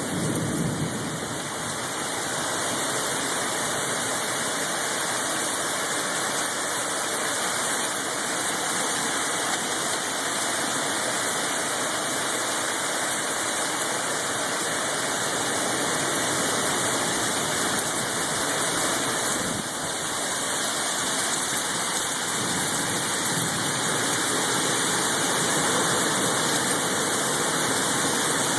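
Storm wind with gusts of about 75 mph, a steady rushing noise that swells a little near the end.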